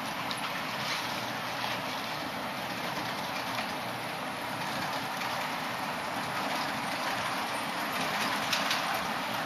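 HO-scale model Ce 6/8 II Crocodile locomotive running on the layout: a steady whir of its motor and gearing, with faint clicks of the wheels over the rail joints that come more often near the end.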